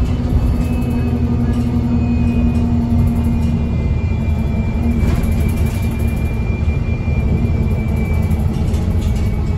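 Alexander Dennis Enviro 200 MMC bus's six-cylinder engine and Voith gearbox under way, heard from inside the saloon: a steady low rumble with a thin high whine that comes in about two seconds in, slowly falls in pitch and fades near the end.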